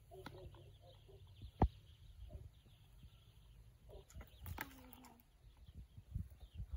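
High-heeled ballet boots stepping slowly and unevenly on concrete paving stones, with a few scattered heel clicks, the sharpest about a second and a half in, over wind rumbling on the microphone.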